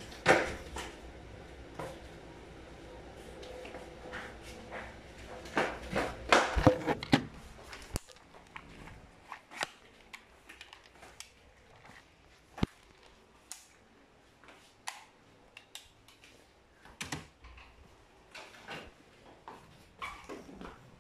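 Scattered knocks, clicks and rubbing from a phone being picked up and handled, loudest just after the start and in a cluster around six to seven seconds in, over a steady hum that stops about eight seconds in.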